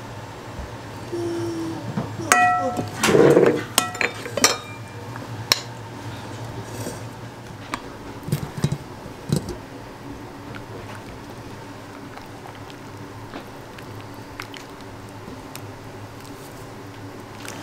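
Kitchen clatter: dishes and utensils clinking and knocking, a quick cluster in the first few seconds with one clink ringing briefly, then only occasional light clicks.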